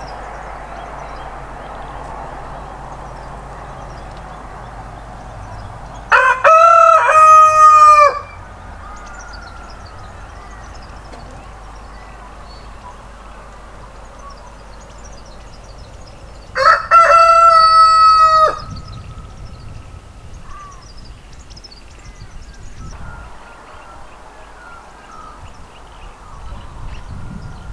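A rooster crowing twice, each crow about two seconds long and about ten seconds apart, over steady background noise with faint small-bird chirps.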